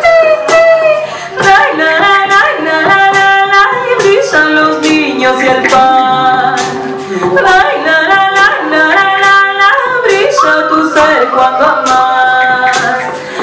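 A woman singing solo in long held notes that step up and down, with a hand-held rattle shaken in a steady beat behind her voice.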